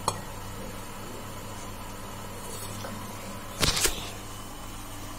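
A steel cooking pot clanks sharply a few times a little past halfway through, over a steady low hum.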